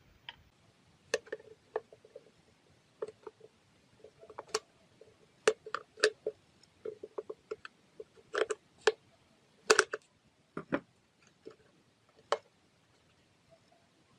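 A quick, uneven run of sharp clicks and light knocks from hard objects being handled, such as tools and plastic parts on a workbench.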